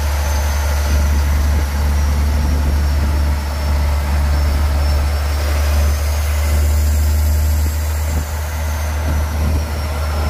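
Swapped-in Cummins diesel engine of a Chevy squarebody pickup running at road speed, heard from inside the cab as a loud, steady low drone mixed with road and wind noise.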